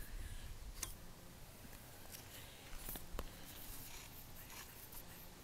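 Faint handling noise from a handheld camera being moved about: low rumbling and rubbing with a couple of soft clicks, one about a second in and one about three seconds in.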